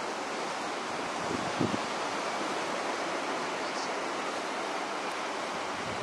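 Steady hiss of wind and sea surf, with a short low buffet of wind on the microphone about one and a half seconds in.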